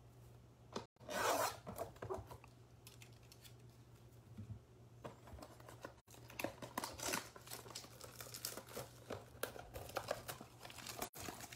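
A cardboard trading-card blaster box being torn open by hand: its wrapping and cardboard tear and crinkle. There is a louder rip about a second in, then a run of short scratchy tears from about five seconds on.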